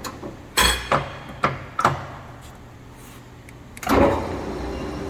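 Four sharp metallic clunks from a Mori Seiki engine lathe's headstock as its speed-change levers are shifted. Then the spindle starts up about four seconds in, and the headstock gearing settles into a steady run at a new low speed.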